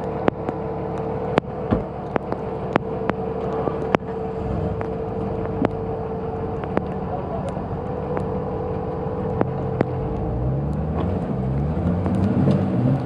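Off-road vehicle engine running and being revved in rising and falling surges from about four seconds in, and again more strongly near the end, while the driver tries to get it unstuck from the mud. A steady whine sits under it, and sharp ticks are scattered throughout.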